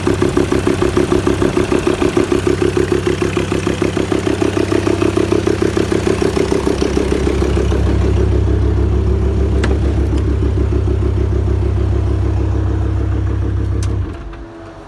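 VW T5 2.5 TDI diesel engine idling with a rhythmic valve knock from an intake valve that still knocks despite new hydraulic lifters and a new camshaft; the mechanic holds that only a cylinder head replacement will cure it. The pulsing evens out about halfway through, and the engine is switched off near the end.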